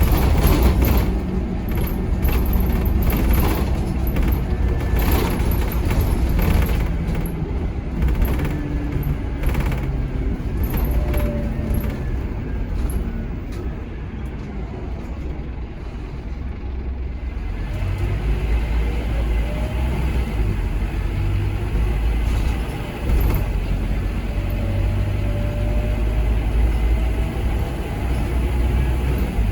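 Scania K230UB Omnilink bus's diesel engine running under way through its ZF Ecomat automatic gearbox. Clicks and knocks come often in the first third, the engine eases off in the middle, and it pulls strongly again from about two-thirds of the way through.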